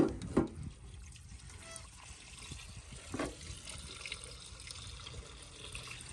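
Diesel poured from a metal measuring jug through a metal funnel into a tractor's fuel tank: a faint trickle of liquid.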